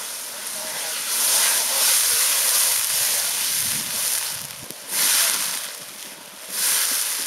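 Handheld fire extinguisher discharging onto a pan fire with a loud hiss, in three bursts: one long spray, then two short squirts.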